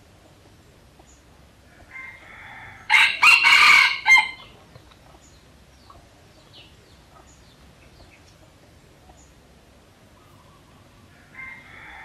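Red junglefowl rooster crowing once, loud and a little over a second long, about three seconds in. Fainter calls come just before it and again near the end.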